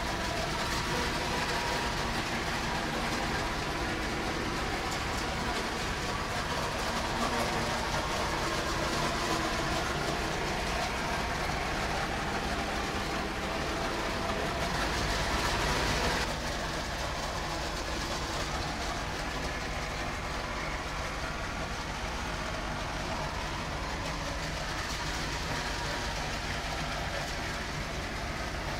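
Electric model train running on its track: a steady whir of the locomotive's motor and the rolling of the wheels on the rails, slightly quieter after about sixteen seconds.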